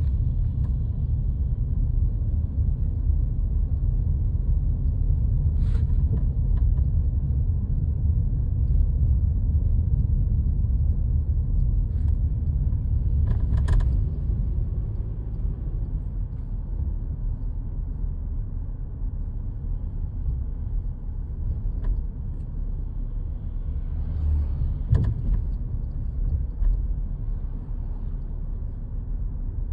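A car driving, with a steady low rumble of engine and road noise. A few short clicks or knocks come through, at about six seconds, near the middle, and about 25 seconds in.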